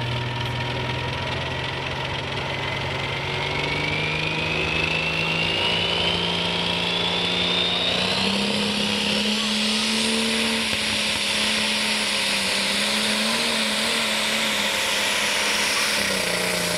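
John Deere Pro Stock pulling tractor's turbocharged diesel engine working under load. The engine note climbs over the first eight seconds while the turbo whine rises steeply, then the engine holds at high revs, wavering a little.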